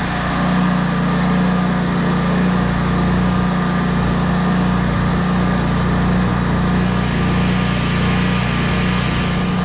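Generac 15,000-watt portable generator's engine running steadily at constant speed. It is powering the house, with the central air conditioner's compressor not yet started.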